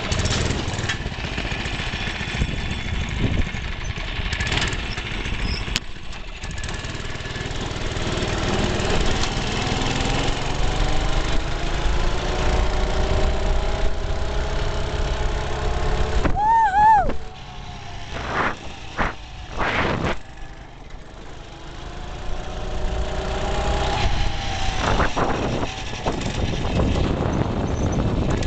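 Small single-cylinder engine of a Baja DB30 mini bike running while ridden, its pitch climbing steadily as the bike speeds up. About halfway through it drops back and runs quieter for several seconds, with a brief high wavering tone and a few sharp knocks, then climbs in pitch again near the end.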